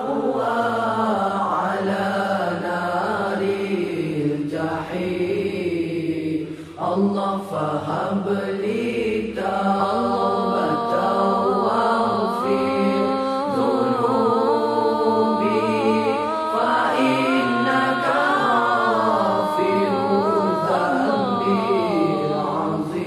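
Melismatic vocal chanting of an Islamic repentance dhikr: long, wavering held notes with a few short pauses.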